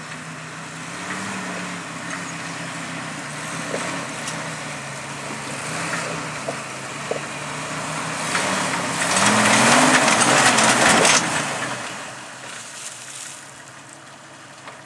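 Off-road Jeep engine running at low revs while crawling over rock. About nine seconds in it revs up for about two seconds under a loud rush of tyres scrabbling on rock as it gets hung up on a ledge. It then drops back to a low idle.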